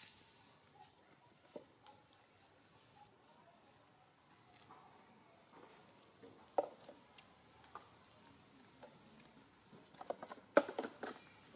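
A bird's short, high call repeating about once a second over quiet outdoor ambience. A brief louder squeak comes about two-thirds of the way in, and a burst of louder short calls near the end.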